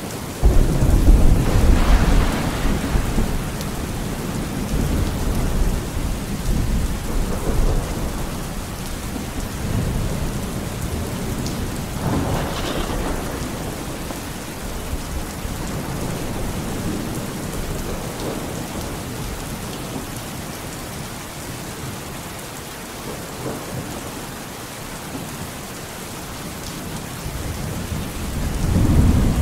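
Thunderstorm: steady rain with thunder. A loud thunderclap breaks about half a second in and rumbles away over several seconds, another peal comes around the middle, and a rumble builds again near the end.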